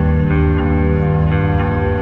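Background music: layered sustained notes that change every half second or so.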